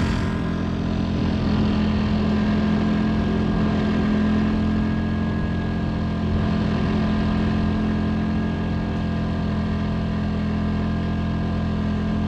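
Cheap portable air compressor and the small generator powering it, running steadily as they pump air into a truck tire.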